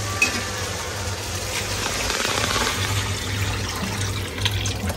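Water and rice bubbling and hissing in the cooking pot on the stove, a steady seething that swells a little midway, over a steady low hum.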